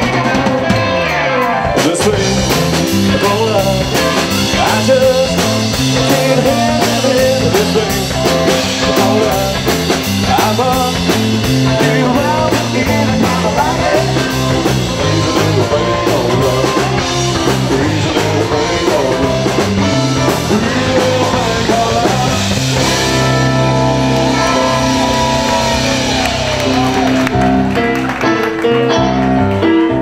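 Live rock band playing: drum kit, guitar and a man singing at the microphone.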